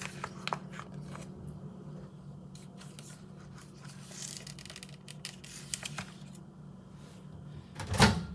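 Plastic bag of lentils rustling and crinkling as it is worked open with scissors, with scattered light clicks. A single loud thump comes near the end.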